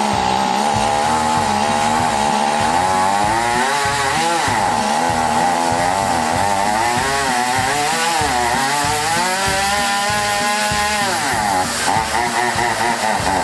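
Stihl MS 180 C two-stroke chainsaw running, its engine speed wavering and surging up and down before dropping back sharply near the end. It runs unevenly, and the owner says it needs a carburetor adjustment.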